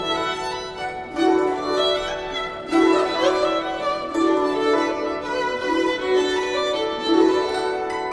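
Instrumental background music with a violin carrying the melody.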